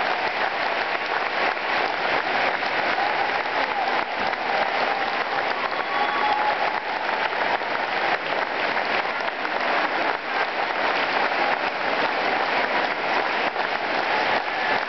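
Large arena audience applauding steadily: a dense, even wash of clapping.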